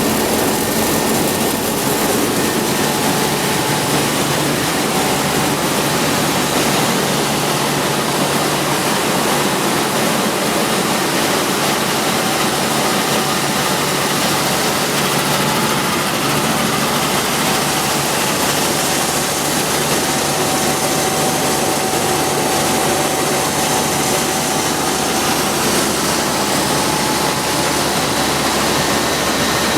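Corn milling plant machinery running: a loud, steady noise without breaks, with a few faint steady whines on top.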